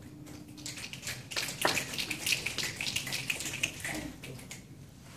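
Small audience applauding: a short, scattered burst of many claps that starts about a second in and dies away after about three and a half seconds.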